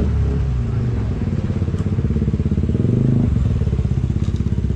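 A small engine running close by with a fast, even pulse; its note shifts a little about three seconds in.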